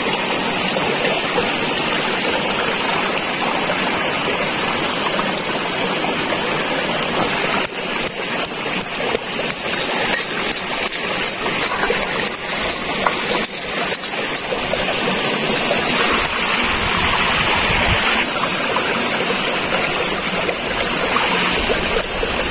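Steady rush of a stream. From about a third of the way in, a quick run of sharp knocks as a round hand stone pounds crab pieces and garlic against a flat rock, followed by rougher scraping as the stone grinds the mash.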